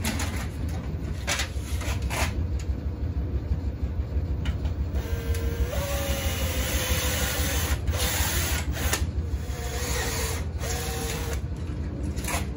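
Cordless drill with a step drill bit boring through a white plastic plumbing-pipe offcut: a couple of knocks as the drill and pipe are picked up, then from about five seconds in the motor whines in spurts, wavering in pitch, as the bit cuts the plastic. A steady low hum lies underneath.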